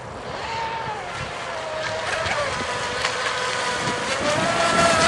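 Electric RC speedboat with a Lehner brushless motor running flat out, a high whine that dips and rises in pitch with the throttle and grows steadily louder.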